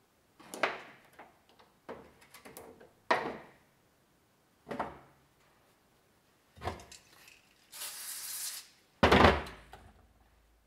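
A series of light clicks and knocks from handling small metal wheel weights and a cardboard box, then a one-second hiss of brake cleaner sprayed from an aerosol can, followed just after by a loud knock.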